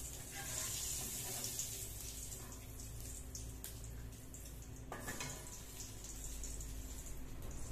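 Hot oil sizzling steadily in a wok on a gas burner, with a few light clicks of a metal spatula against the wok and a stone mortar.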